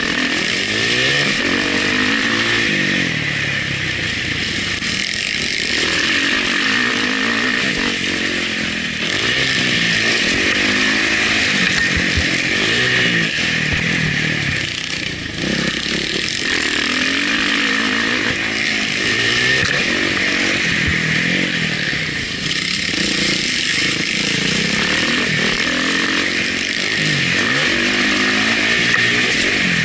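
Motocross bike engine heard onboard, revving up and falling off again and again as the rider accelerates, shifts and rolls off around the track, with steady wind noise over the camera.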